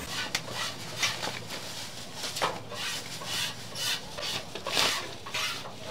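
Metal spatulas scraping and tapping on a flat steel griddle in a run of short, irregular strokes as stir-fried rice noodles are scooped up.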